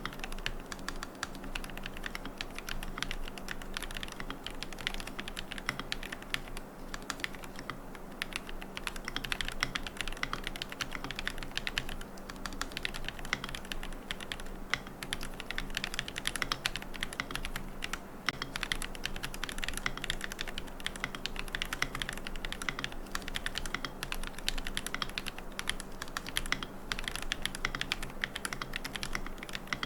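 Continuous typing on a QK75N mechanical keyboard with Gateron Moon Landing switches, a carbon plate, MilkyWay Poker keycaps and no foam: a steady stream of rapid, sharp keystroke clicks.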